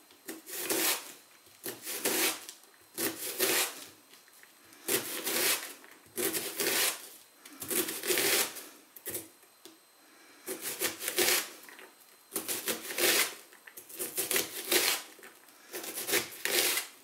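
Kitchen knife slicing down through an onion onto a cutting board, dicing it crosswise into cubes: one short scraping cut after another, roughly one a second, some in quick pairs.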